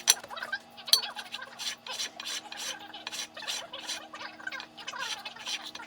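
Aluminium thermostat housing being rubbed back and forth on sandpaper over a sheet of glass, quick rasping strokes about three to four a second, flattening its bowed gasket face. A couple of sharp knocks near the start.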